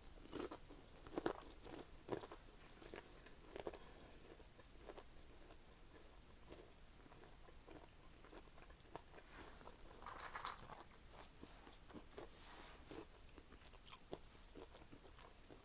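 A person chewing and biting fried food at close range, in faint irregular crunches and wet mouth clicks, with a slightly louder run of crunching about ten seconds in.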